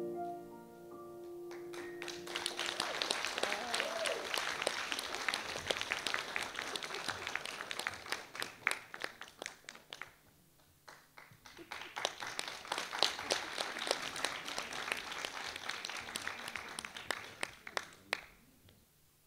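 The piano's last chord rings out as the song ends, then an audience applauds. The clapping dips briefly about ten seconds in, picks up again in a second round, and dies away near the end.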